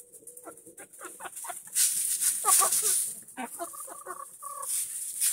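Several hens clucking softly in short, scattered calls while they forage, with a high hiss that swells and fades twice.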